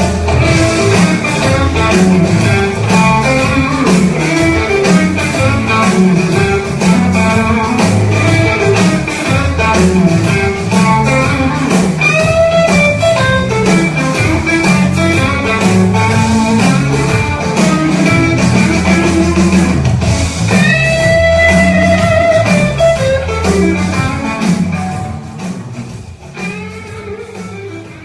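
Guitar-led music over a steady bass line, fading out over the last few seconds.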